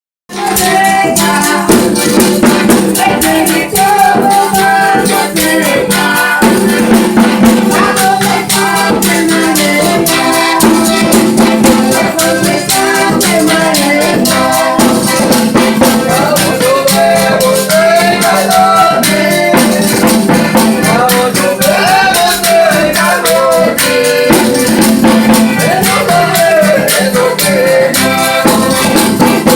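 Folia do Divino devotional folk music playing without a break: steady shaken, jingling hand percussion under a wavering melody line.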